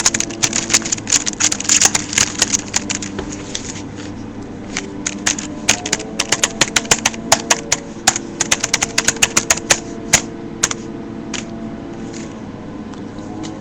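Typing on a wireless keyboard: quick runs of sharp key clicks, dense in the first few seconds and again from about six to ten seconds in, with only a few scattered keystrokes near the end.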